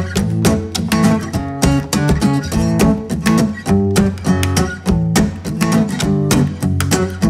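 Background music with strummed guitar and a steady beat.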